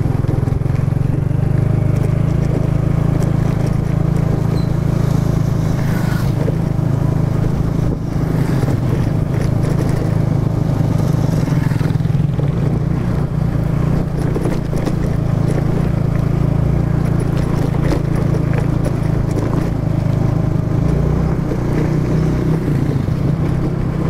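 Motor scooter riding along a dirt road at a steady speed: the small engine running with wind and road noise mixed in.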